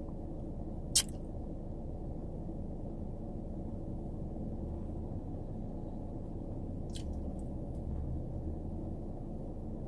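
Steady low background rumble, with one sharp click about a second in and a couple of faint ticks later.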